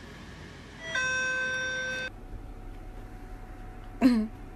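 A steady electronic beep, one even tone about a second long, cut off sharply. Near the end comes a brief, loud, sharp sound whose pitch drops quickly.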